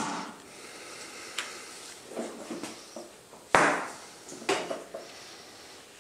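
A few light metal clicks and knocks as a banjo bolt and wrench are handled at a motorcycle's hydraulic clutch master cylinder, over a rag. The sharpest knock comes about three and a half seconds in.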